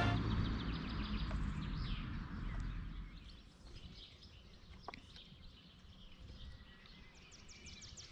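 Music fades out over the first few seconds, leaving quiet outdoor ambience with small birds chirping faintly.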